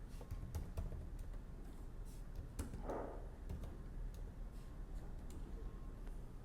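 Faint scattered clicks and light taps over a low steady hum, with no singing.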